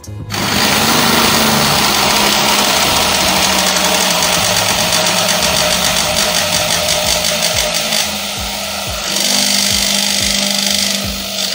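Electric countertop blender starting up suddenly and running at full speed, whirring steadily as it blends egg, sugar and oil into batter. Its level dips briefly about eight seconds in, then comes back up.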